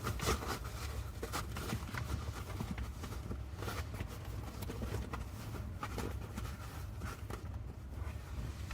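Hands working at a car seat back's upholstery and plastic panel: scattered irregular clicks, taps and rustles over a steady low hum.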